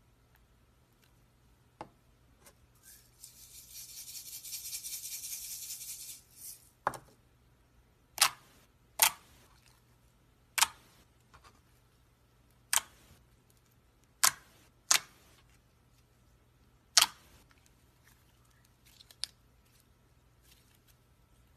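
Glossy white slime being pressed and folded by hand, giving a string of sharp air-bubble pops, about eight loud ones a second or two apart. These follow a few seconds of steady high hiss.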